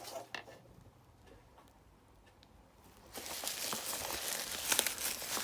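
Parcel packaging being handled and pulled at: a couple of clicks, then from about three seconds in a steady crinkling and rustling with sharp crackles.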